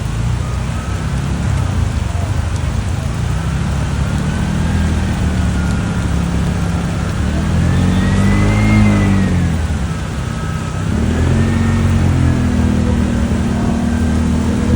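A motor vehicle's engine running, its pitch rising to a peak about eight seconds in, dropping briefly, then holding steady at a higher pitch as the vehicle speeds up again.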